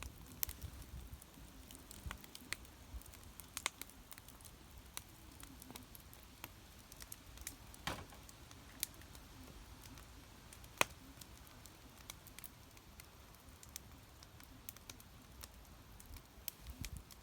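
Campfire crackling: irregular sharp pops and snaps over a faint low rumble, the sharpest pop about eleven seconds in.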